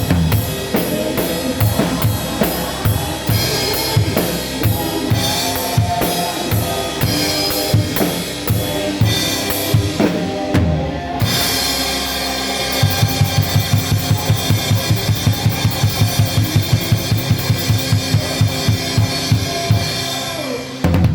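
Live church band with a drum kit playing a worship song, heard through a phone's microphone. Just past the middle the drummer plays a fast, even run of bass drum hits, about five a second, building to a final hit at the end.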